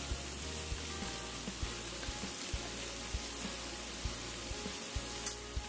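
Cubes of beef searing in butter and olive oil in a frying pan, with a steady sizzle and a few light taps as chopsticks turn the pieces. Soft background music plays underneath.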